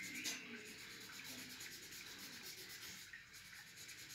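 Folded paper tissue rubbed over charcoal on drawing paper, blending the shading: a faint, soft scratchy rubbing with a brief let-up about three seconds in.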